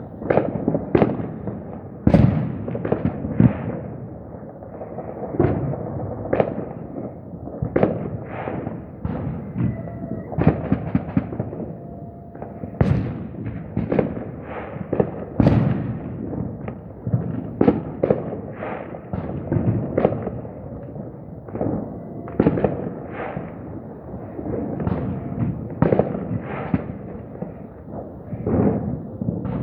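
Fireworks and firecrackers going off one after another: dozens of sharp bangs and deeper booms at irregular intervals, sometimes several a second, each followed by a short echoing tail.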